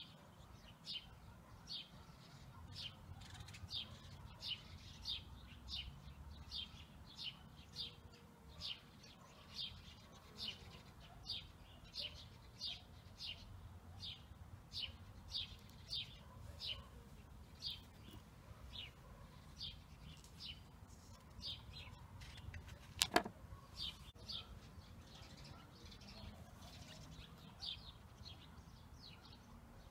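A bird chirping the same short call over and over, about one and a half chirps a second, faint. A single sharp click about two-thirds of the way through is the loudest sound.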